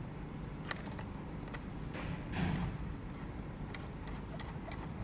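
Handling sounds: a few faint light clicks and a brief soft rustle as the blaster and its battery wires are handled, over a steady low hum.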